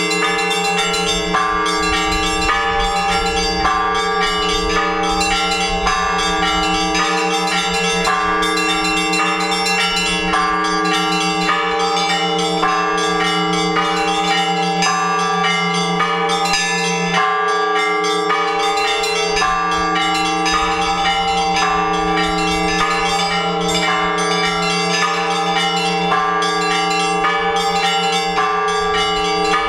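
Orthodox church bells ringing a full peal: several bells of different pitches struck in a quick, steady rhythm over the sustained hum of the deeper bells, summoning the faithful to the all-night vigil.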